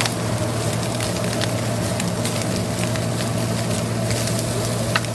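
Cooking over a gas flame: a steady hum with scattered small crackles and pops.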